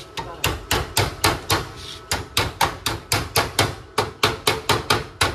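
Hammer blows on a metal plate, about four a second in a steady run of some twenty strikes, each with a short metallic ring. The plate is being beaten into shape after being tack-welded in as a battery base.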